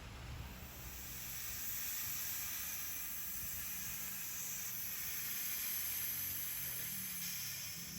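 A steady hissing spray as the punctured runflat tyre is washed down, building over the first second and easing off near the end.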